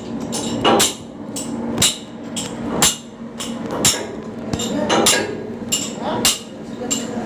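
Hammer blows on metal, about one a second, several of them ringing briefly after the strike.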